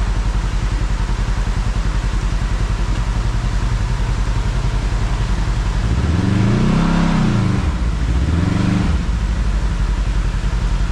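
Side-by-side UTV engine running under way, over a steady rush of wind and road noise. About six seconds in, the engine note rises and falls twice as it speeds up and eases off.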